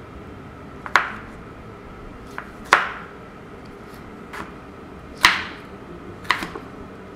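Chef's knife dicing a Roma tomato on a wooden cutting board: about seven sharp, irregularly spaced knocks of the blade striking the board, the three loudest about two seconds apart.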